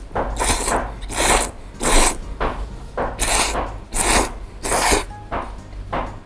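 A person slurping very thick, firm Yoshida udon noodles in a run of hard, noisy slurps, roughly one every half-second to second, fading to weaker ones near the end.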